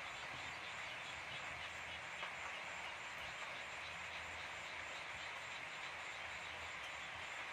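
Steady background hiss with a low hum underneath and no distinct events.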